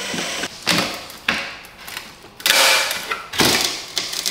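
Old rear diffuser being worked loose and pulled off the car's underside: several sudden knocks and rattles, with a longer scrape about halfway through.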